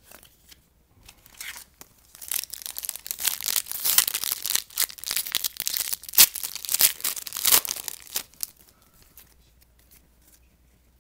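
A trading-card pack's wrapper being torn open and crinkled by hand, a dense crackling run for about six seconds, with quieter handling before and after.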